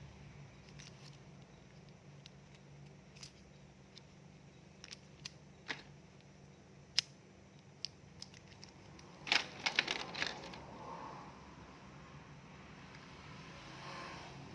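Hair clipper and its plastic parts being handled: scattered light clicks and taps, with a quick cluster of clicks about nine to ten seconds in, over a faint low steady hum.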